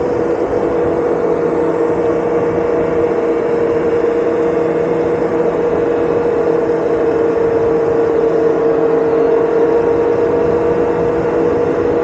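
Electric bike's motor whining at one steady pitch while cruising at a constant speed, over a steady rush of wind and road noise.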